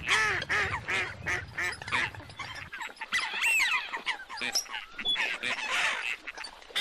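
A flock of ducks and other waterbirds calling: many short, overlapping calls in quick succession, with a low rumble under the first few seconds.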